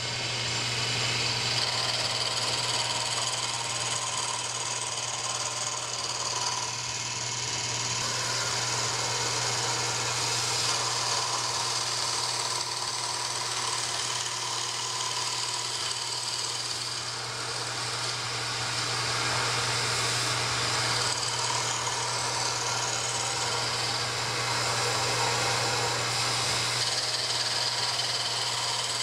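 Logan metal lathe running steadily while its cutting tool turns down the corners of a square glued-up wooden blank, together with a vacuum hose held at the cut drawing away the fine dust.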